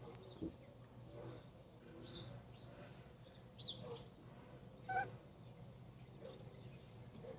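House cat chattering at birds: a few faint, short chirps, the loudest about five seconds in, mixed with faint bird chirps.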